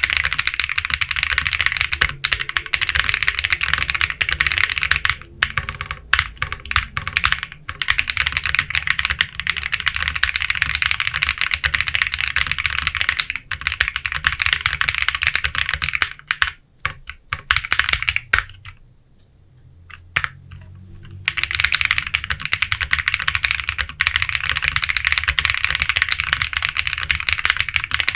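Fast typing on a Matrix 6XV 3.0 Corsa custom mechanical keyboard with unlubricated Bsun RAW linear switches and PBTFans PBT keycaps: a dense, steady stream of keystrokes. The typing thins to scattered presses a few times and stops briefly about two-thirds of the way through before picking up again.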